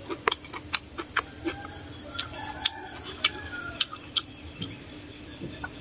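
Close-up eating sounds: sharp wet mouth clicks and smacks, about a dozen scattered through, as a mouthful of noodles is chewed. Hens cluck faintly in the background.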